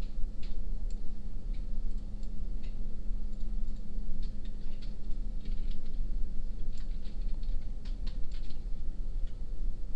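Soft, irregular clicks of a computer mouse, some in small clusters, over a steady low hum.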